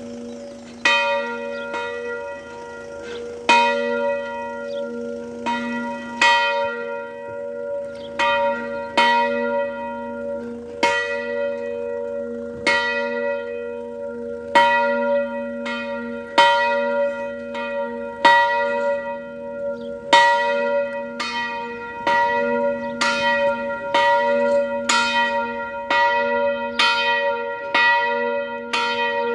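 Large bronze church bell, cast in 1972, ringing with repeated clapper strikes, each leaving a long ringing hum that carries into the next. The strikes come about every two seconds at first and quicken to about one a second from about two-thirds in.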